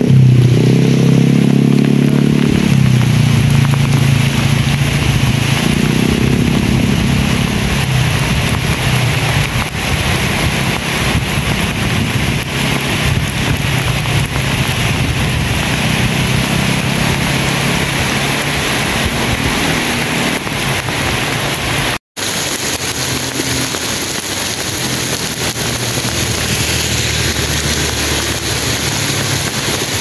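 Heavy tropical rain pouring onto lake water, a dense steady hiss. A low droning hum underneath fades away over the first several seconds, and the sound cuts out for an instant about two-thirds of the way through.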